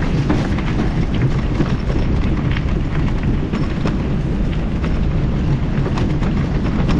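Steady low rumble of wind and rolling noise from a mountain bike ridden along an unpaved dirt road, with scattered small ticks of gravel under the tyres.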